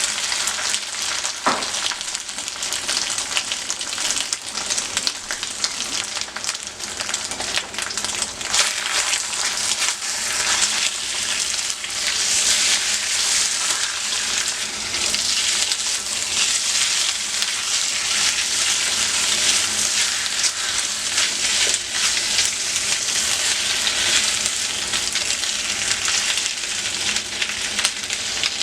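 Food sizzling steadily in hot oil in a pan, with a few light clicks along the way.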